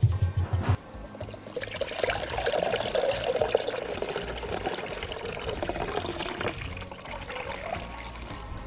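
Cream poured from two cartons at once into a glass bowl: a steady splashing pour that is strongest in the first half and thins to a trickle toward the end. A few short low thumps at the very start.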